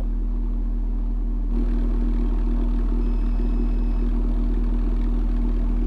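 Car-audio subwoofer playing a steady, loud low bass tone, with the level stepping up about a second and a half in as the amplifier is turned up to about 1400 watts.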